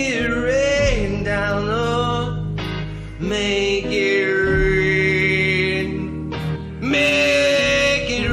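A man singing long held notes over band accompaniment with guitar. The longest note is held for about three seconds in the middle.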